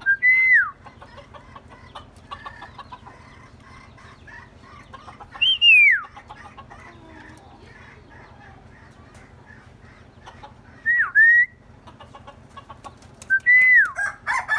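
Myna giving loud, clear whistles four times, each under a second long. The whistles slide in pitch, mostly falling, one dipping and rising again. Faint chattering and clucking lie between them.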